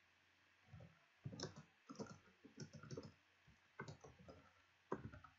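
Computer keyboard typing: a run of faint, irregularly spaced keystrokes.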